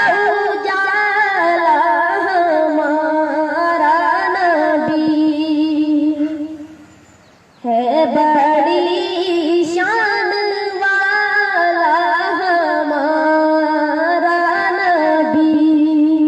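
A solo voice singing a naat, an Urdu devotional song in praise of the Prophet, in long drawn-out notes with vibrato. It fades out about six and a half seconds in and comes back suddenly about a second later.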